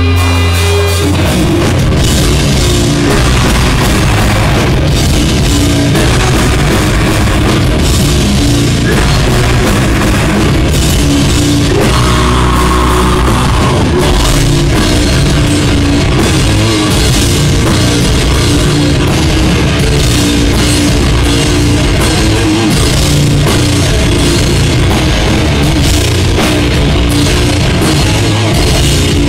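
Live heavy metal band playing loud in a club: a held chord rings for about a second, then drums and guitars come in together and pound on at full pace.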